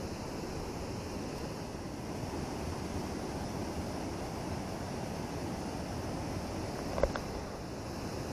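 Steady rush of river water pouring through a weir, an even roar with no let-up. A single short knock sounds about seven seconds in.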